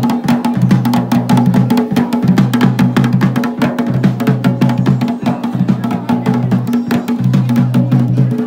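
Dhol and damau drums played in a fast, dense rhythm for the mandan dance, with a steady low drone beneath.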